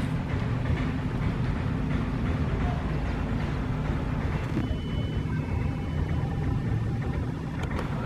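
Wind buffeting the camera microphone, a steady low rumble. The hiss above it thins out about halfway through.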